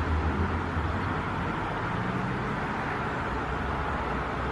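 Steady outdoor background noise: an even hiss over a low hum, like distant traffic.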